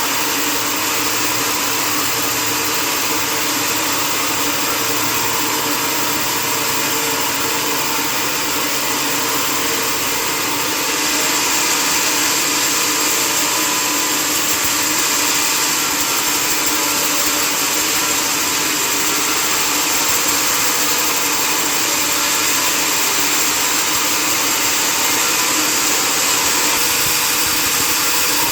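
Sawmill machinery running steadily with a hum and a broad hiss. It gets a little louder and brighter from about a third of the way in until near the end.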